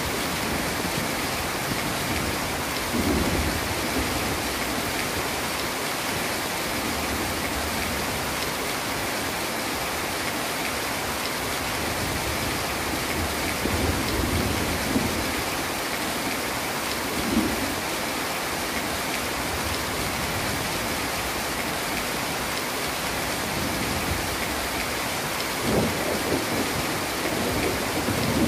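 Heavy rain falling in a steady, dense hiss, with low rumbles of thunder coming and going several times, one starting near the end.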